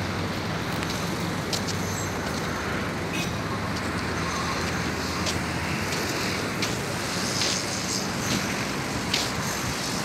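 Steady road traffic noise, a continuous low rumble with a few faint scattered clicks.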